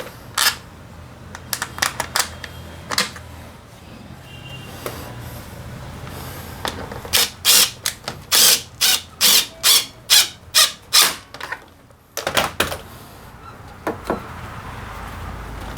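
Hand tools and metal parts clicking and clattering during scooter drivetrain work. In the middle there is a quick run of about a dozen short, sharp strokes, roughly two to three a second.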